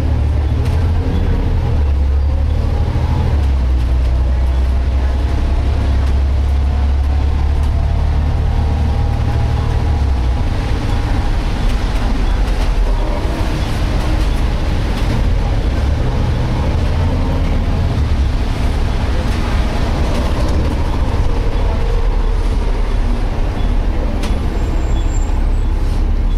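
Cabin noise of a Volvo B7TL double-decker bus under way: engine and road noise with a heavy low drone that eases about ten seconds in. Through it runs a wavering whine from the rear axle differential, the strange diff noise.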